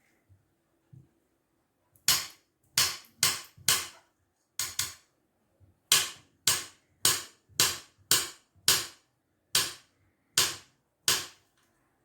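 A kitchen knife chopping down onto a cutting board while slicing fruit: about fifteen sharp knocks, roughly two a second, starting about two seconds in.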